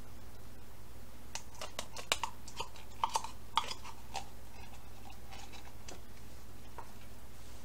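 Metal utensil scraping and clinking against the inside of a small tin can of tomato paste as the paste is dug out and spread onto meatloaf in an aluminium pan. A quick run of sharp clicks comes about one and a half to four seconds in, with a few fainter ones later.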